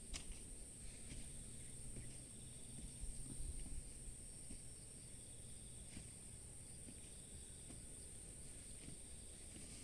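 Insects calling in a steady, unbroken high-pitched drone, with a fainter second insect call coming and going lower down, over a low rumble. A brief click right at the start.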